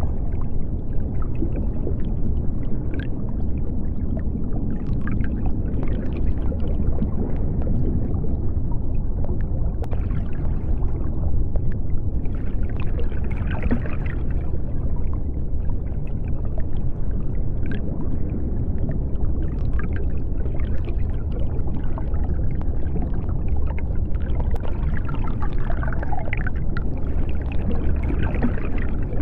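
Underwater ambience: a steady deep rumble of water with bubbling and gurgling scattered through it.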